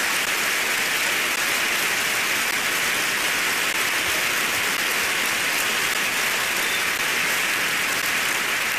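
Large audience applauding steadily, dense clapping with no break, after a rousing line in a speech.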